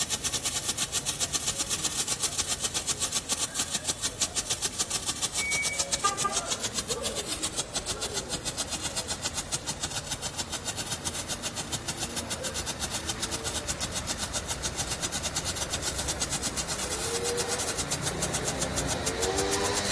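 A firework (the "Flash" DR60R item) firing a long, steady, rapid series of sharp cracks, several a second and evenly spaced.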